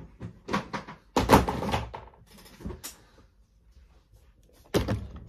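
Handling noise from plastic RC toy van bodies being picked up, moved and set down on a table: a few knocks and clatters, a longer scrape or rustle about a second in, and a sharp knock near the end.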